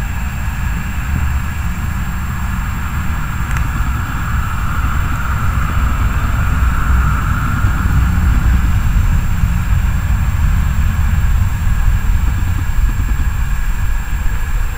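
Boeing 737-800 jet engines at taxi power as the airliner taxis past and turns. A steady low rumble with a whine that builds and is loudest from about halfway through.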